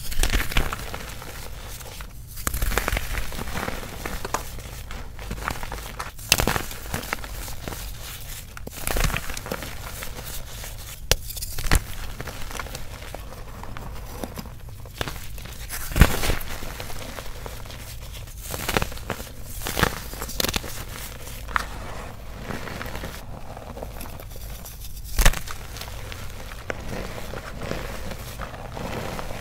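Reformed cornstarch and gym chalk blocks, mixed with baking soda, crushed and squeezed by bare hands: a steady dry crunching and crackling as chunks break and powder packs, with a few louder sharp cracks.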